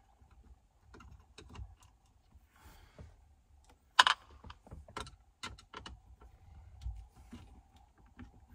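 Scattered clicks and clacks of a screwdriver and loosened screws against the plastic dashboard as the Uconnect screen's mounting screws are taken out. The sharpest click comes about four seconds in, followed by a quick run of smaller clicks.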